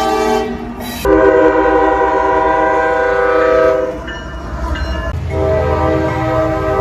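Multi-chime train air horns sounding long, steady chords, one blast after another. One blast ends about half a second in, a second runs from about a second in to about four seconds, and a third begins a little after five seconds with a low rumble beneath it.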